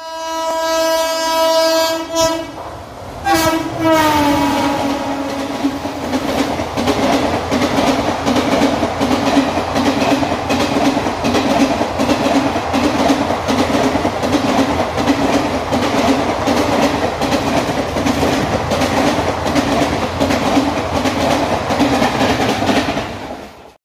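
Indian Railways WAP-7 electric locomotive sounding its horn twice as it runs through a station at about 110 km/h, the second blast dropping in pitch as the locomotive goes by. Then the passenger coaches rush past with a steady, rhythmic clatter of wheels on the rails.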